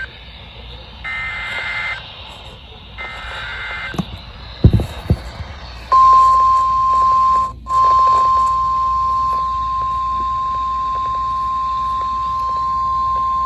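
NOAA Weather Radio emergency alert: two bursts of warbling SAME data tones, each about a second long, then a few loud pops, then from about six seconds in the steady 1050 Hz warning alarm tone, a single high beep held on with one brief dropout soon after it starts. The tones signal that a new warning is about to be broadcast.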